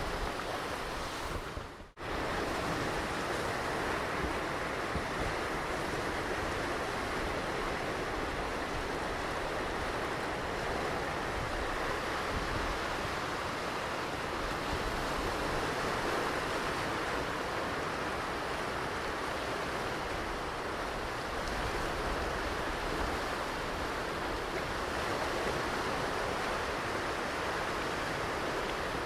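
Ocean surf washing ashore as a steady, even hiss with no separate wave crashes standing out. About two seconds in, the sound drops out for an instant and comes back steady.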